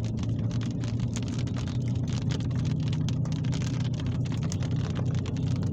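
Rain falling during a severe thunderstorm, a dense run of sharp drop taps on a hard surface over a steady low hum.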